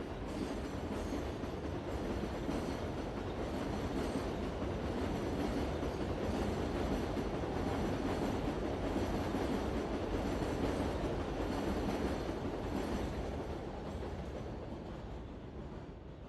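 Metro train running on its rails: a steady rumble of wheels and car noise that builds to its loudest in the middle and then dies away near the end.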